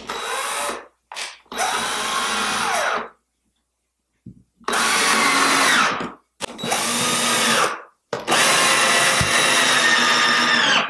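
Cordless drill driving screws into willow sticks, its motor whirring in about five runs of one to three seconds, the pitch sagging within runs as a screw bites in.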